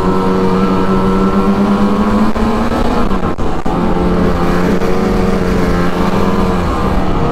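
Ski-Doo MXZ 600 E-TEC two-stroke snowmobile engine running steadily under throttle while riding. Its pitch climbs slightly, dips about three seconds in, then holds steady again.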